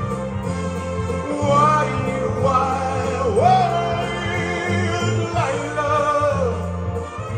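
A man singing live into a microphone through a PA, over a backing track with a steady bass line; his voice comes in about a second in.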